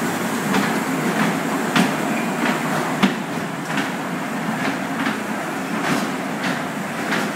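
Small kiddie ride train rolling along its track, its wheels clicking at a steady beat of a little under two clicks a second over a steady low rumble.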